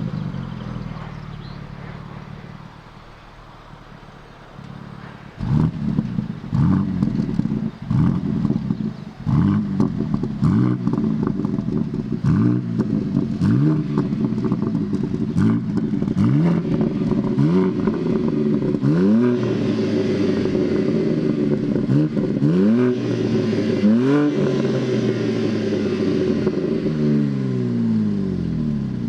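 BMW M3 G80's S58 twin-turbo inline-six, its particulate filter and mid silencer replaced by an H-pipe, being revved in repeated quick blips. Each blip rises sharply in pitch and drops back, about one every second and a half. It settles from an earlier rev at the start, and near the end the revs fall away.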